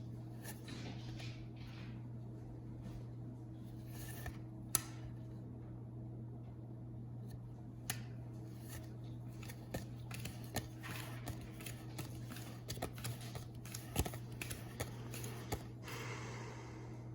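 Playing cards being handled one at a time: scattered soft clicks and snaps as cards are flicked and slid off the deck, with a few brief rustles, over a steady low hum.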